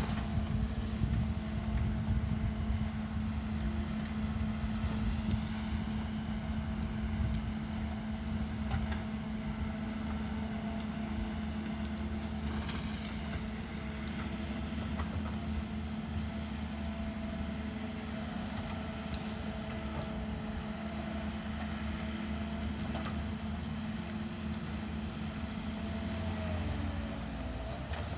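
Engine of a land-clearing machine running steadily, with a few scattered clicks and knocks and a falling whine near the end.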